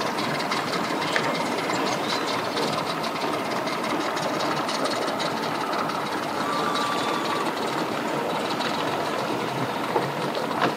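Mercury 50 hp outboard motor on a bass boat running steadily at low speed.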